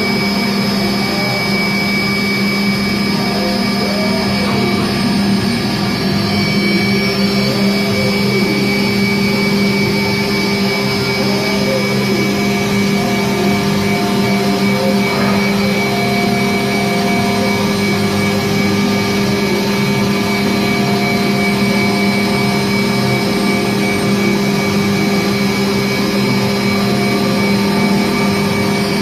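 Mazak Variaxis 500 CNC vertical mill's spindle running at 12,000 rpm with a steady whine made of several even tones over machine hum.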